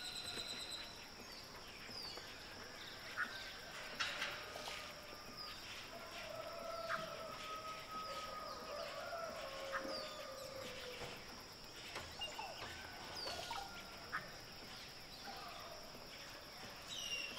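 Outdoor nature ambience: assorted birds calling, with short chirps, quick falling whistles and a few longer held notes scattered throughout, over a steady high-pitched hiss.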